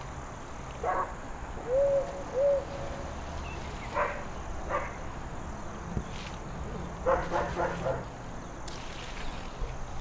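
Dog barking several times with pauses between, ending in a quick run of barks.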